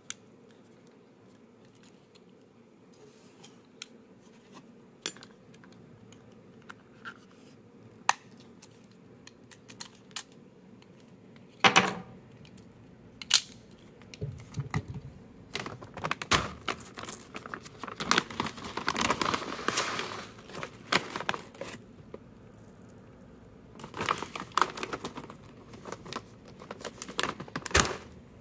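Hands working a metal CO2 airsoft revolver: scattered sharp clicks and metallic clinks as parts are handled, two louder clicks a little before halfway, then a denser stretch of clinking and rattling, with a last few clusters of clicks near the end.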